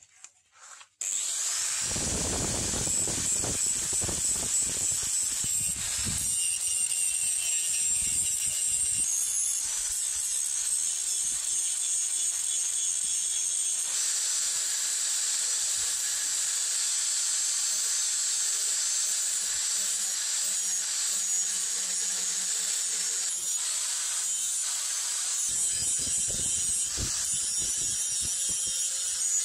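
Handheld electric angle grinder running steadily with a high whine as it grinds a small forged steel axe head held in a vise. It starts about a second in, and its tone shifts a few times as the disc works the metal.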